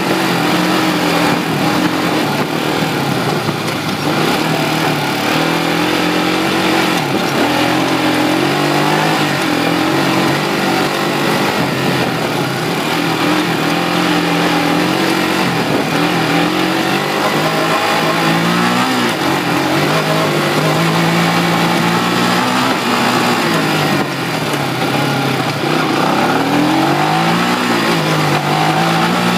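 1988 Kawasaki Mojave 250 quad's single-cylinder four-stroke engine running hard, its pitch rising and falling over and over as the throttle is opened and let off, with deeper drops and climbs near the end. Heard up close from a phone strapped to the front of the quad.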